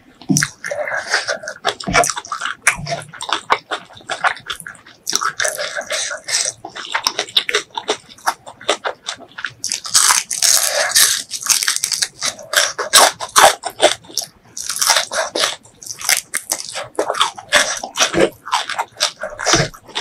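Close-miked chewing of a hand-eaten mouthful of white rice, spicy shredded mango salad and fried fish: a dense run of quick, irregular mouth clicks and smacks, with a few short pauses.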